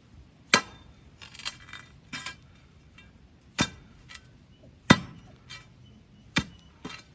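Metal digging tool striking solid rock at the bottom of a post hole: separate sharp metallic clanks, each with a brief ringing tone, about four hard strikes and a few lighter ones.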